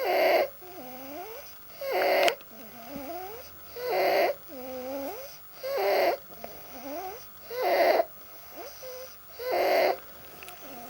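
A young child with severe croup breathing at rest: a loud, harsh, pitched stridor on each in-breath, six times about two seconds apart, with quieter wavering sounds between them. Inspiratory stridor at rest is the sign of a badly narrowed upper airway.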